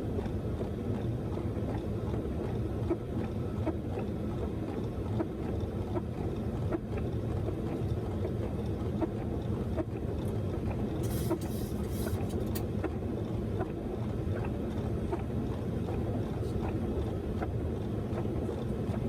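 Steady roar of airflow and engines inside a Boeing 737 cockpit on approach, with faint scattered ticks and a brief high hiss about eleven seconds in.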